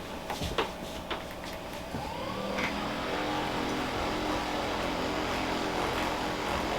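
An electric handheld massager: a few clicks, then about two seconds in its motor whines up in pitch and settles into a steady run.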